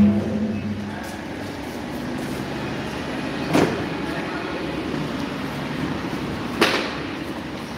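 Steady room noise broken by two sharp knocks about three seconds apart.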